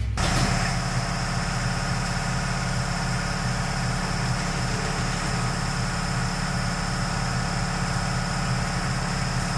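Steady mechanical drone of a running engine or motor, even and unchanging, with a faint high whine.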